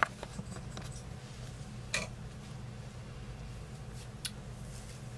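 Makeup being handled: a few short clicks and taps of eyeshadow cases and brushes, the sharpest at the very start, then one about two seconds in and another about four seconds in, over a low steady hum.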